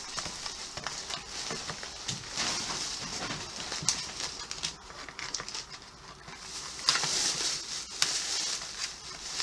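Packaging being handled and opened: rustling and crinkling with scattered small clicks, louder in two spells about two seconds in and again near the end.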